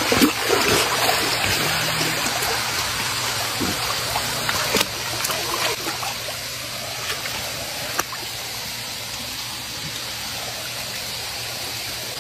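Swimming pool water sloshing and running around a wading child, a steady watery rush that settles quieter after the first few seconds, with a couple of faint clicks.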